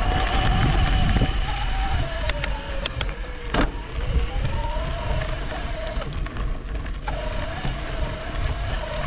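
E-bike motor whining while riding, its pitch sagging and rising with speed, over a steady low rumble of the ride. A few sharp clicks come a couple of seconds in.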